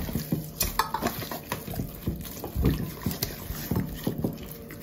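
Hands massaging the salted, peppered skin of a raw whole duck in a glass baking dish, making a run of irregular wet squelches and slaps.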